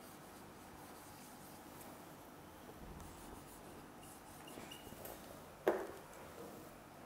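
Faint squeaks and scratches of a marker writing on a whiteboard, with one short louder sound about three-quarters of the way through.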